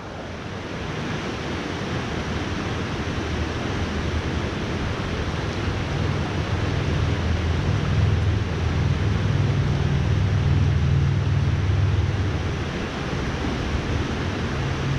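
Creek water rushing steadily over rocks, with a low rumble that swells in the middle and fades again.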